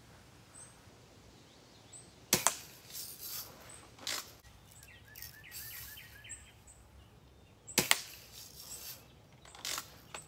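Two sharp BB gun shots, about five and a half seconds apart, with a few fainter clicks between them.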